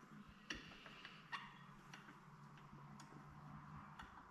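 Sparse light metallic clicks of an Allen wrench and socket working the clutch weight bolts on a UTV's primary clutch: two sharper clicks about half a second and a second and a half in, then a few fainter ones, over a faint steady low hum.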